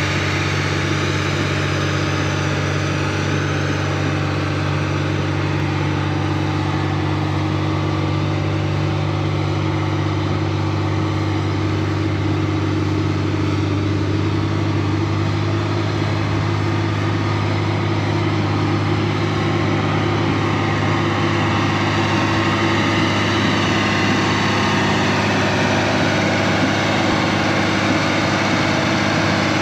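Heavy diesel engine running steadily at an even speed.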